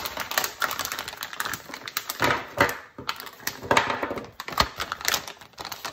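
Clear plastic packaging crinkling and crackling as it is handled and pulled open, a dense run of sharp crackles with brief pauses.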